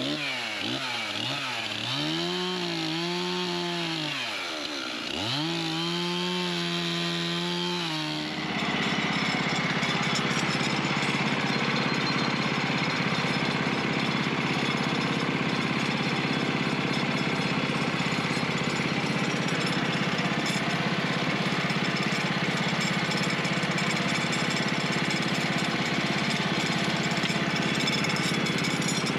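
A chainsaw revved up and back down several times. About eight seconds in it gives way to the steady running of a portable bandsaw sawmill's gas engine as the blade is pushed through a poplar log.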